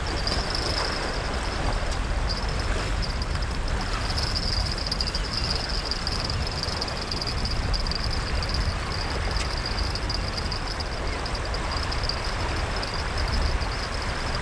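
Steady outdoor noise: wind rumbling on the microphone over the wash of the sea, with a continuous high-pitched whine running throughout.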